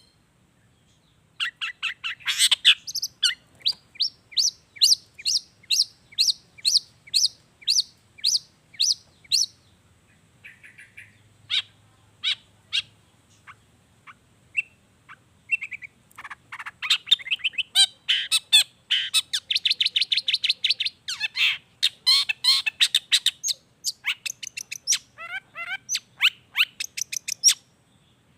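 Long-tailed shrike singing: a run of sharp repeated chirps at about three a second, then scattered single notes, then a fast, dense chattering passage in the second half.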